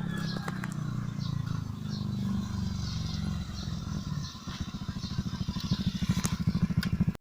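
Motor vehicle engine running, low and steady, settling into a rapid, even throb in the second half.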